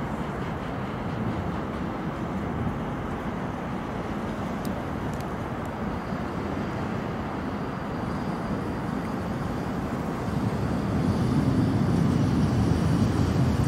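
71-623.02 (KTM-23) tram approaching on its rails, a steady low running noise that gets louder about ten seconds in as it draws near.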